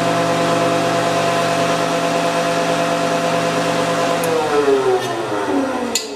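Wood shaper's motor and belt-driven spindle running steadily on freshly replaced spindle bearings: good smooth running, with only the belt whining. About four seconds in it is switched off, and its pitch falls as it spins down, with a few light clicks.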